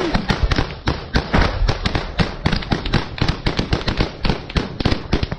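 Close small-arms gunfire in a trench firefight: rifle shots cracking several times a second, irregular and overlapping, from more than one gun.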